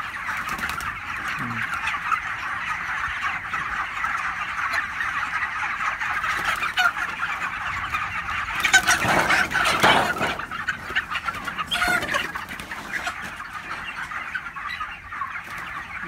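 A large flock of broiler chickens in a shed, a dense, steady chorus of peeping and clucking. A louder burst of noise rises out of it about nine to ten seconds in.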